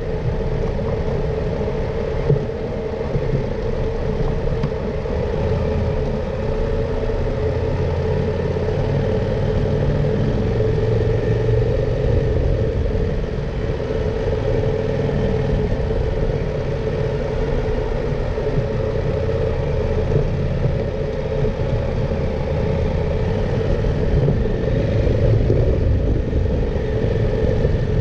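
KTM 890 Adventure R's parallel-twin engine running as the motorcycle rides along, with steady road noise; the engine note rises and falls a few times with the throttle.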